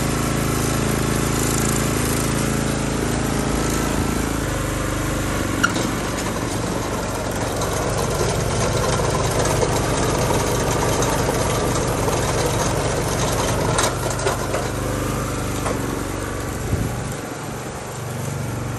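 Honda HS760 tracked snowblower's small petrol engine running steadily. Its note shifts about four and a half seconds in and again near the end, with a couple of light clicks along the way.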